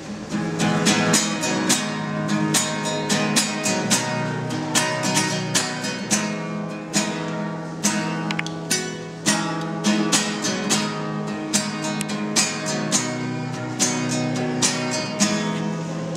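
Nylon-string classical guitar strummed in a steady rhythm, sharp chord strokes about every half second with the chords ringing between them.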